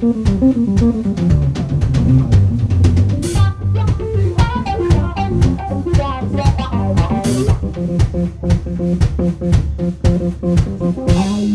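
Live rock band playing an instrumental passage: a Telecaster-style electric guitar plays runs of notes over a driving drum kit and bass guitar, with cymbal crashes about three seconds in, again around seven seconds, and near the end.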